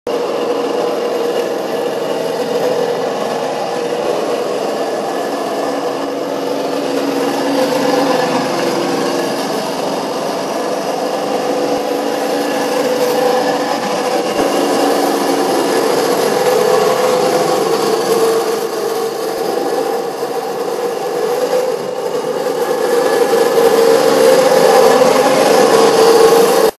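The 36-volt electric drive of a motorised Bugatti Type 52 children's car running, a steady rasping mechanical whine as it rolls over asphalt, getting louder near the end.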